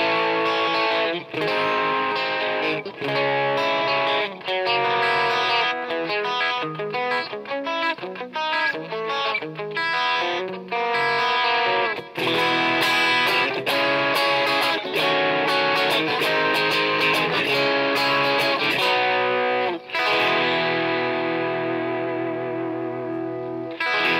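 Stratocaster electric guitar played through an idea sound product IDEA-TSX ver.2, a TS808-style overdrive pedal, giving an overdriven tone. It plays chords and busier note passages, then lets a chord ring for the last few seconds before it cuts off.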